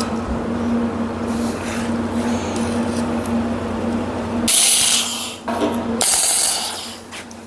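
Steady workshop hum, then two short, loud bursts of welding-arc hiss and crackle, each about a second long, about four and a half and six seconds in: tack welds on a steel hitch-pin bracket.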